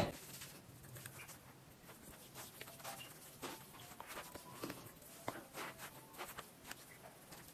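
Faint, irregular soft taps and rubbing of fingers and palms patting primer into the skin of the face.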